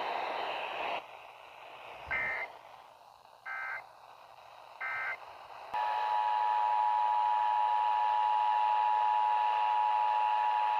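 Emergency Alert System signal: three short warbling SAME digital data bursts about a second and a half apart, then the two-tone EAS attention signal coming on about six seconds in and holding steady, over a hiss of radio static.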